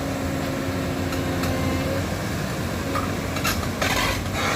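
Excavator's diesel engine running steadily, with a humming tone that drops out about two seconds in and comes back a second later, and a few short sharp knocks or cracks near the end.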